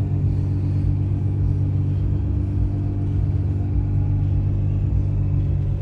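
A full bolt-on 2009 Nissan GT-R's twin-turbo V6 idling steadily, heard from inside the cabin as a low, even hum.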